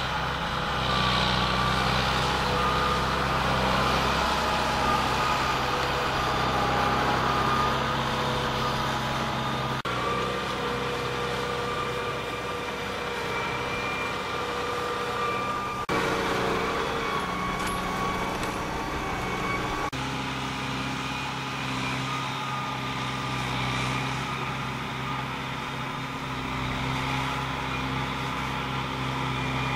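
Kubota Super 110A tractor's diesel engine running steadily, with its pitch shifting abruptly a few times.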